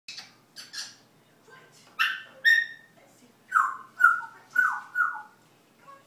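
African grey parrot imitating a dog's barking: a run of short, high-pitched bark-like calls, the last four in quick succession, each falling in pitch.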